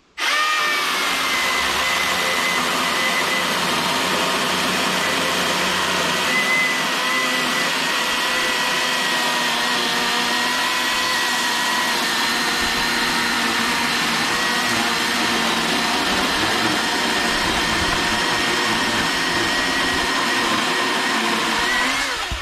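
Milwaukee M18 cordless electric chainsaw cutting through a knotty hemlock log: a steady high motor-and-chain whine that starts suddenly, holds nearly level through the cut and winds down at the end as the chain comes through.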